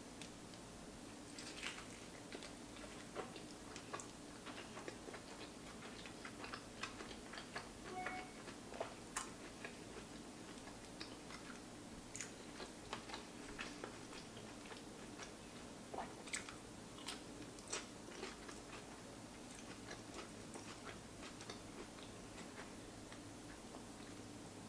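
A person chewing a mouthful of roasted lemon-pepper chicken sandwich: faint, irregular wet clicks and smacks of the mouth.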